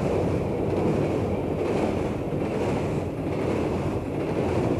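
Steady rushing wind sound with a low rumble underneath, loud and even.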